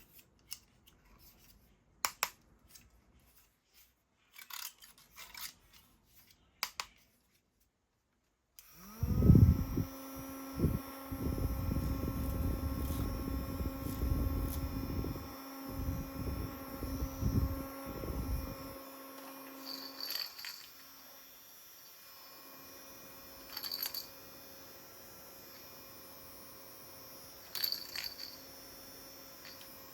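Scattered handling clicks, then a mini desk fan's small electric motor spins up about nine seconds in and runs with a steady hum. A low rumble accompanies it for about ten seconds, and a few sharp clicks come later on.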